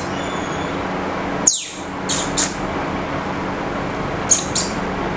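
Lutino lovebird giving short, sharp, high chirps: one with a quick falling sweep about a second and a half in, then two pairs. A steady background noise with a low hum runs beneath.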